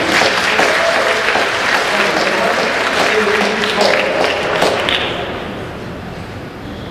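Spectators applauding and cheering for a point just won, dying away about five seconds in.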